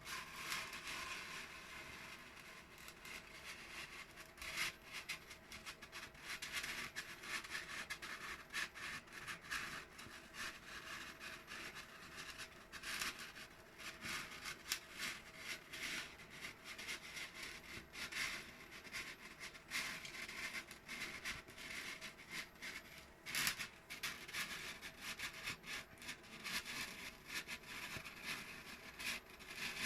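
Polystyrene foam rubbing and scraping as a sheet is pushed across the table of a hand-fed hot-wire foam cutter to cut a circle. There is a faint, uneven scratchy sound with many irregular crackles.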